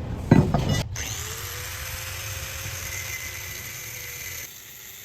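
A short loud noise, then a power tool running steadily with a high whine for about three and a half seconds, stopping near the end.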